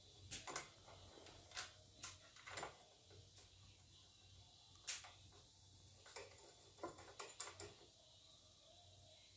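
Faint scattered clicks and knocks of an air compressor's metal handle being worked into its mounting bracket on the tank, the sharpest knock about five seconds in.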